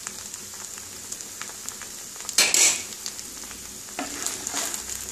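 Cooked rice being stirred and turned with a wooden spatula in a non-stick pan, with freshly added ghee sizzling in a steady hiss and small ticks of grains against the pan. A brief louder burst of noise comes about two and a half seconds in, and the stirring grows a little louder near the end.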